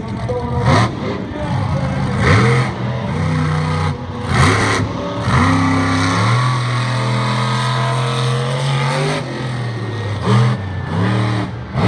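Bigfoot monster truck's supercharged V8 engine revving hard through a qualifying lap. A few quick bursts of throttle come in the first five seconds, then it is held at steady high revs for about three seconds, and it blips up and down again near the end.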